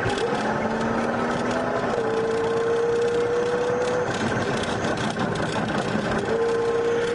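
Steady engine and road noise heard from inside a car driving at highway speed. Two long, nearly level tones of about two seconds each, slightly rising, come in about two seconds in and again near the end.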